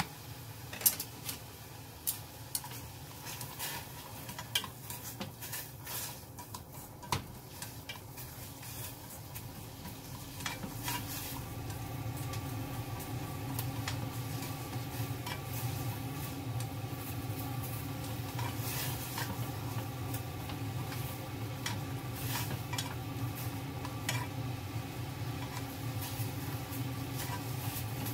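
Kitchen utensils clicking and scraping against a pot or bowl while food is stirred. About ten seconds in, a steady mechanical hum comes on and continues under occasional light clicks.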